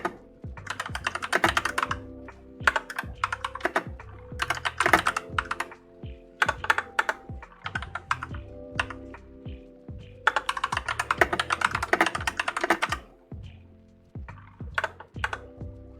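Fast typing on an AKKO Tokyo World Tour 3087 mechanical keyboard with Akko Cream Yellow switches: quick runs of key clacks in bursts of a second or two, broken by short pauses.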